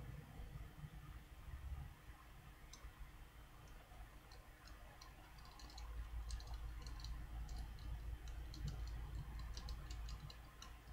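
Small, light metallic clicks of a small Phillips screwdriver and tiny screws being worked into an iPhone 3G, coming irregularly and more often in the second half, over a low steady hum.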